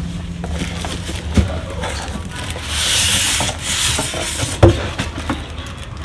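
Polystyrene packing and plastic wrap rubbing and scraping against a cardboard box as a boxed laser printer is slid out, with a rustle for about two seconds in the middle. A dull knock about a second and a half in and a louder one near the end.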